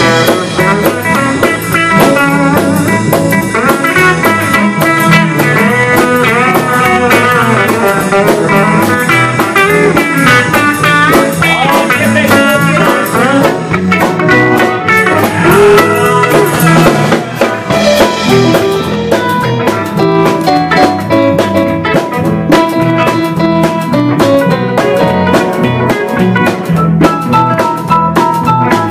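Live country band playing an instrumental break: electric guitars, bass and drums, with a lead line of sliding, bending notes over a steady beat.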